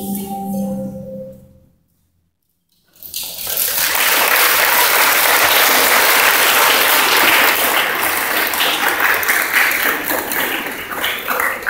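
The last notes of a school song fade out, and after a brief silence an audience breaks into steady applause that thins out to scattered claps near the end.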